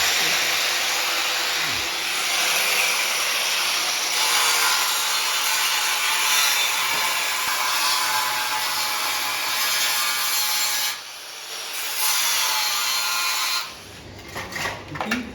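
Angle grinder cutting and grinding the iron gate's steel, a loud abrasive hiss with a faint steady whine. It stops for about a second, runs briefly again, then cuts off shortly before the end.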